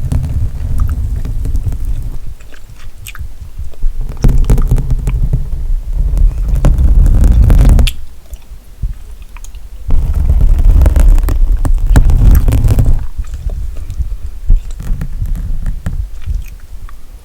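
Gum chewing close to a sensitive microphone, with many small mouth clicks. There are two long stretches of loud low rumble, one starting about four seconds in and one about ten seconds in.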